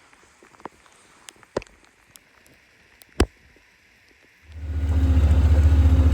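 Scattered faint clicks and soft crunches, with one sharper knock about three seconds in. About four and a half seconds in they give way to a vehicle engine running steadily with a loud low hum.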